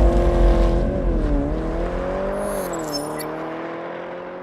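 Car engine revving, its pitch rising and dipping several times, then fading away over the last couple of seconds.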